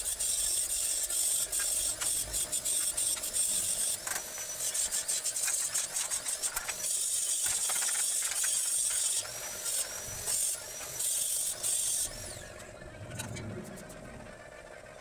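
Stick (arc) welding on steel tube: a steady crackling hiss of the arc, broken off briefly a few times as the arc stops and restarts. The arc stops about twelve seconds in, leaving only a few faint clicks.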